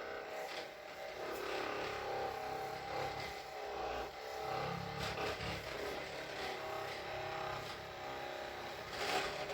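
A small motor hums steadily, its pitch wavering a little, with a few short clicks and a louder click near the end.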